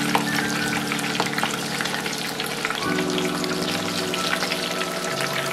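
Breaded mozzarella bites deep-frying in hot vegetable oil, a dense crackling sizzle. Under it runs background music of held chords that change about three seconds in and again near the end.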